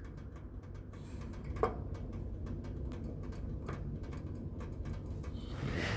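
Faint, fairly regular ticking clicks, about one to two a second, over a low steady hum, with a brief squeak about a second and a half in.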